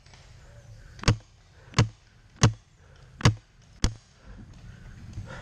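Tippmann TMC paintball marker firing five single shots, each a sharp pneumatic crack, spaced a little over half a second apart, starting about a second in.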